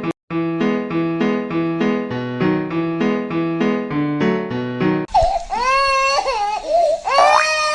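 Simple electric-piano tune with a bouncy, repeating melody, which breaks off about five seconds in for a cartoon crying sound effect: a wailing cry that slides up and down in pitch.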